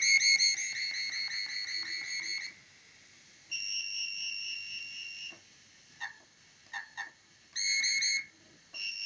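Small loudspeaker playing high electronic tones, the test signal of a homemade FM transmitter. First a tone pulsing about seven times a second, then a gap and a steady higher tone, three short chirps, a brief burst of the pulsing tone, and the steady tone again near the end.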